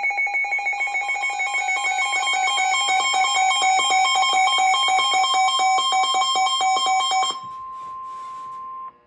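A loud electronic alert: several steady tones pulsing rapidly, about ten times a second, like a ringing alarm. About seven seconds in this gives way to a single steady tone near 1 kHz, the NOAA Weather Radio warning alarm tone, which lasts about a second and a half and cuts off suddenly.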